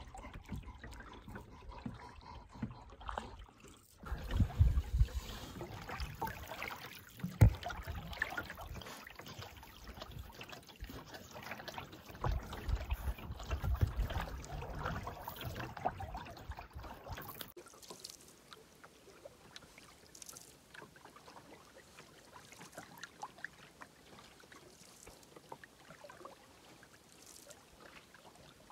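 Canoe being paddled on a lake: paddle strokes through the water, with trickling and dripping. Uneven low rumbles and knocks come through the first half. About two-thirds of the way in it drops quieter, leaving a faint stroke every couple of seconds.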